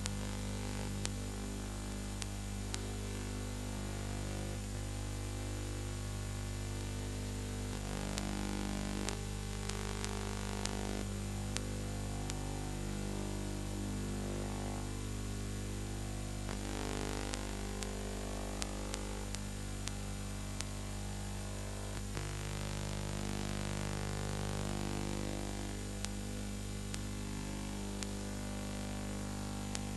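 Steady electrical mains hum with hiss and scattered clicks and crackles: the noise of a film transfer with no soundtrack of its own.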